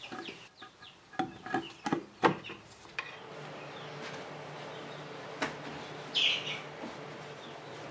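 A few sharp knocks in the first couple of seconds as workshop pieces are handled, then a steady low hum, with a brief high chirp about six seconds in.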